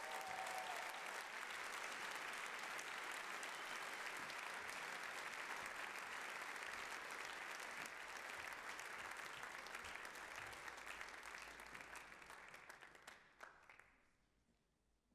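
Audience applauding steadily, then dying away near the end.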